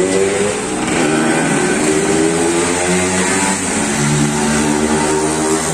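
Engines of road vehicles passing on the street, steady and loud, their pitch climbing in stretches as they speed up.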